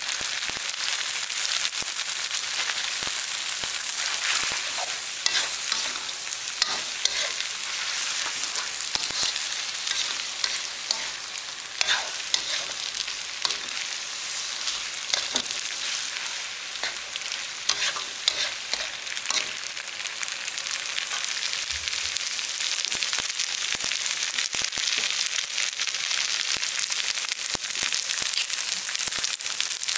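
Flat rice noodles, bean sprouts and shrimp sizzling in a hot wok as they are stir-fried, with frequent scrapes and clicks of the spatula against the pan.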